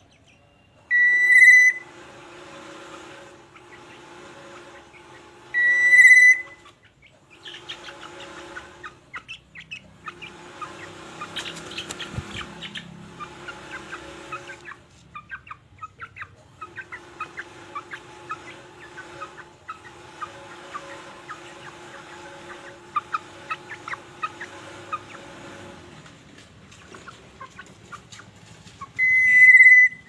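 Black-naped oriole calling: three loud, short, clear whistles, the first about a second in, the second about six seconds in and the third at the very end, with long stretches of quieter, fast chattering song between them.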